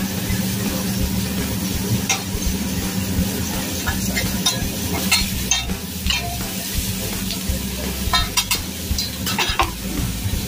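Vegetables and seafood sizzling on a hibachi steel griddle while the chef's metal spatula and fork scrape and clink against the hot plate, with sharp clicks scattered through and bunched in the middle and near the end.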